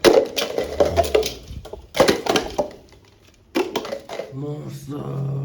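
Toy guns clacking: three sharp plastic hits, each with a short ring, the first at the very start, then about 2 s and 3.5 s in. Near the end a low steady hum with overtones comes in.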